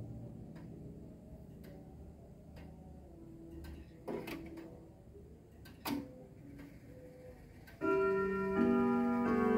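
Urgos grandfather clock ticking about once a second, with two louder clicks in the middle. A little before the end the chime starts: several ringing notes struck one after another in a melody, much louder than the ticking.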